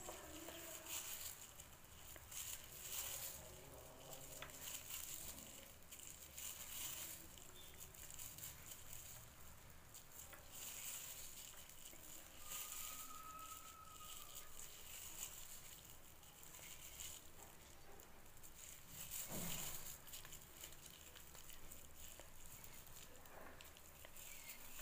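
Faint, irregular crinkling and rustling of plastic-bag strips as they are pulled and crocheted with a hook.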